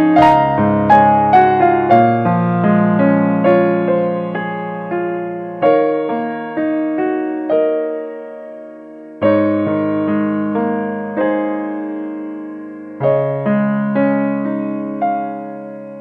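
Background music: piano playing slow chords and a melody, each note struck and fading.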